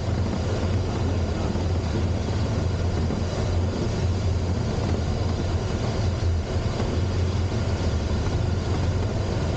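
Steady airflow noise in a Duo Discus glider's cockpit during aerotow, with a constant low drone underneath.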